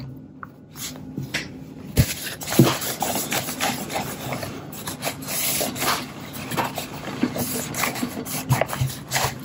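Rubbing and scrubbing on the black plastic top of a Kodak Instamatic 300 camera as it is cleaned and polished with plastic-restoring compound: a scratchy rub, quieter at first and louder from about two seconds in, with small clicks and knocks.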